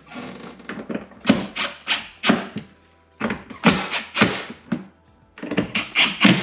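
Red cordless power driver driving screws into a fish finder mounting bracket, run in short trigger bursts: three runs of several quick bursts each, with brief pauses between them.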